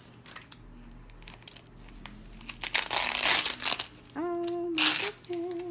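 A thin translucent plastic bag crinkling as hands squeeze and open it. The crinkling comes in a long loud stretch about halfway through and a shorter one near the end.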